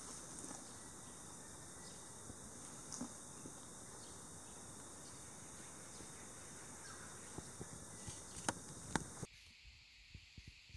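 Steady high-pitched insect chorus over outdoor background noise, with a few sharp clicks, the two loudest close together about eight and a half and nine seconds in. The sound then drops suddenly quieter.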